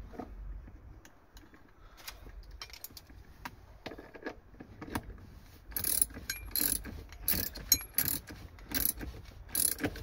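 A socket ratchet wrench clicking as a seat belt mounting bolt is turned out. There are scattered clicks at first, then quick bursts of sharp clicks from about six seconds in.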